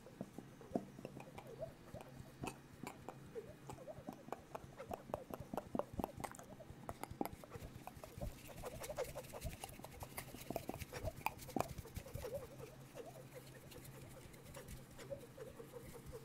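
Mouth sounds made right at the microphones: a dense run of quick lip and tongue clicks mixed with short squeaky chirps, imitating small animals and birds, with hands moving close to the mics.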